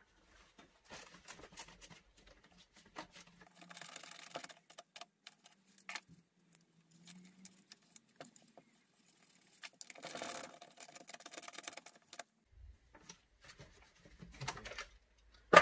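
Scattered clicks, taps and rattles of small plastic and metal chainsaw parts being handled and fitted by hand, with a faint low hum in the first half.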